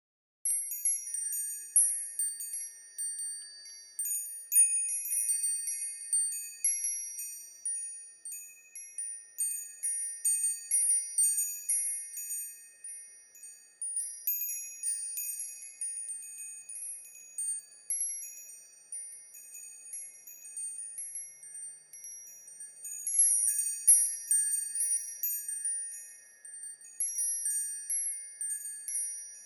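Wind chimes ringing, starting about half a second in: many high-pitched strikes that overlap and ring on.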